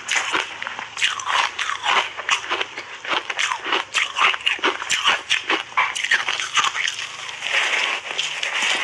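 Refrozen block ice coated in matcha powder crunching between teeth, close-miked: a rapid run of sharp cracking crunches, thickening into a denser grinding crunch near the end as a big bite is taken.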